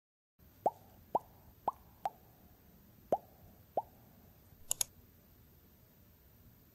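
Six soft water-drop plops at uneven intervals, each a quick rising blip, then two sharp clicks in quick succession about two-thirds of the way through. A faint room hiss underneath.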